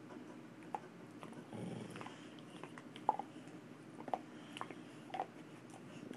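American Staffordshire terrier chewing a hard white chew bone, its teeth clicking and knocking on it several times, with a low rumbling growl about one and a half seconds in as it guards the bone.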